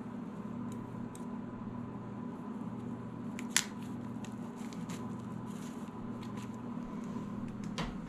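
Kitchen shears snipping through a skinned ruffed grouse's wing joint: one sharp snip about three and a half seconds in, with a few faint clicks of handling. A steady low hum runs underneath.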